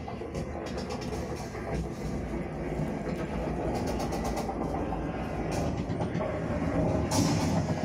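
Recorded sound of a train under way: a steady rumble with wheels clattering on the rails.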